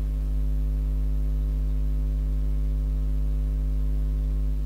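Steady electrical mains hum: a low, unchanging drone with a stack of higher overtones, the hum of the recording's microphone chain.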